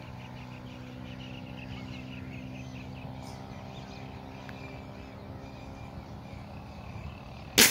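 A steady low hum with faint bird chirps in the first few seconds, then near the end a single sharp, loud shot from a Cometa Fusion PCP air rifle.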